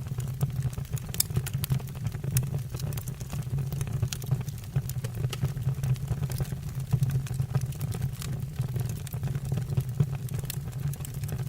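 Wood fire burning in a fireplace, with frequent irregular sharp crackles and pops of the burning logs over a steady low rumble.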